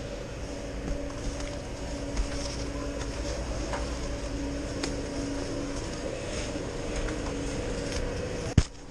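Steady mechanical hum of a chairlift's drive machinery, with a faint on-and-off humming tone, over the scrape and scattered clacks of skis and poles on packed snow in the loading line. A sharp knock comes near the end.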